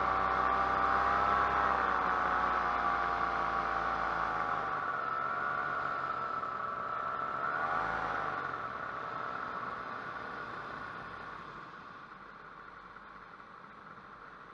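Paramotor engine running with its pitch wavering, a brief rise and fall in revs about eight seconds in, then dying away over the last few seconds as it is throttled back, leaving a faint steady hiss of air.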